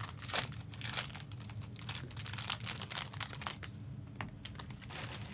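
Foil trading-card pack wrappers crinkling and crackling irregularly as packs and cards are handled, over a steady low hum.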